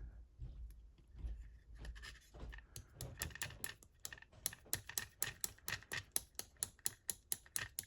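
Small metal lock parts being worked by hand as the key pins are coaxed out of the gutted Mottura CP6 lock: light scattered clicks, then from about three seconds in a quick, even run of sharp metallic taps, about four a second.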